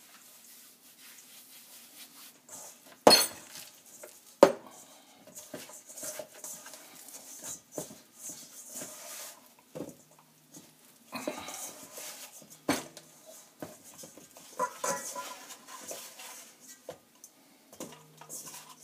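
Kitchen clatter of bowls and utensils being handled while bread dough is worked: scattered knocks and clinks, the two sharpest about three and four and a half seconds in, with softer handling noise between.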